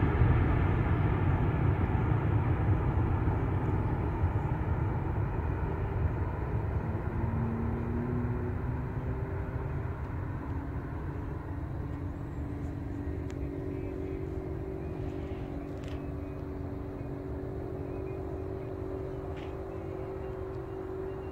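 Departing airplane's engines rumbling as it climbs away, fading steadily. About a third of the way in, a steady low hum from another engine comes in under it.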